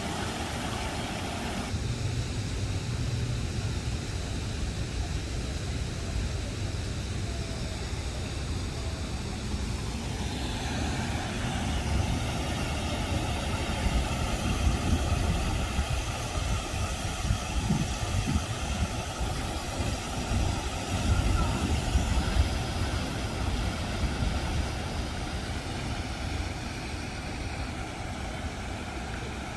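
Garden waterfall pouring into a pond: a steady rush of falling water with a strong low rumble. The sound changes abruptly twice, a couple of seconds in and about a third of the way through.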